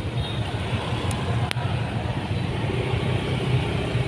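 Road traffic noise from a dense, slow-moving jam of motorbikes and cars: a steady mix of engines running, heard from among the traffic. There is a single sharp click about one and a half seconds in.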